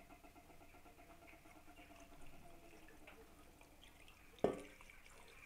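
Brine poured from a saucepan into an aluminium pressure cooker pot over a layer of fish, a faint steady trickle and splash. A single sharp knock about four and a half seconds in.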